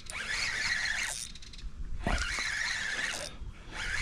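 Fishing reel being cranked in three bursts of about a second each, winding in line.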